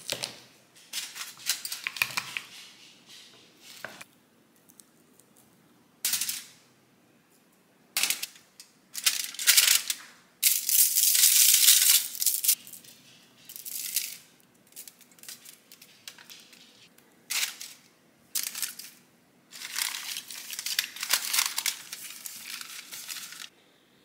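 Aluminium foil crinkling and rustling in irregular bursts as a glass baking dish is lined and raw chicken pieces are handled in it. The longest, loudest stretch of crackling comes about halfway through.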